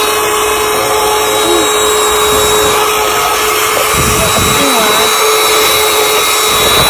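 Mini cordless handheld vacuum cleaner running steadily: a constant motor whine over a rush of air as its narrow nozzle sucks up crumbs from a desktop.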